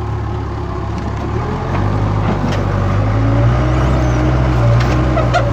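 Case 580 Super K backhoe's diesel engine running. About a second and a half in, the engine note rises and grows louder as it revs up to lift a heavy log.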